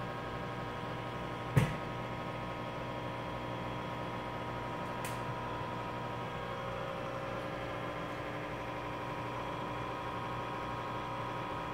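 Steady hum of running aquarium pumps and filters, a mix of several fixed tones over a low pulsing drone. A single sharp knock comes about a second and a half in.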